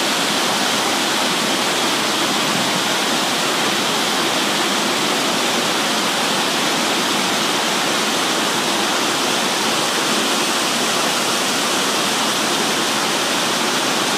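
Small waterfall and stream rushing steadily, an even wash of water noise with no separate splashes standing out.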